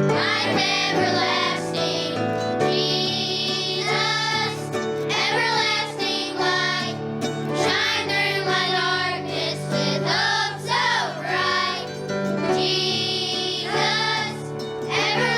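Children's choir singing a song with instrumental accompaniment, the sung phrases breaking every second or so over steady held chords.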